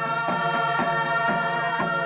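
A group of Papua New Guinean village singers chanting in long held notes, with a drum beating steadily about twice a second.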